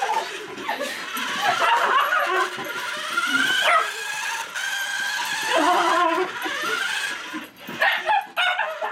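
Miniature schnauzer whining and yipping in long, wavering cries.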